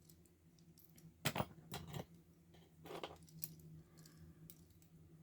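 Light metallic clicks and clinks of small padlock parts handled by hand while a Paclock 90A Pro padlock is being gutted, a few scattered ticks with the loudest a quick pair about a second in.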